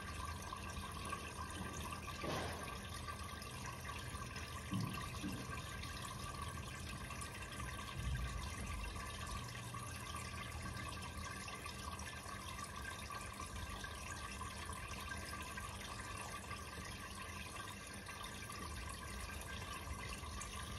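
Aquarium air stones bubbling steadily in the tank water, over a low steady hum. There are a couple of soft bumps, the loudest about five and eight seconds in.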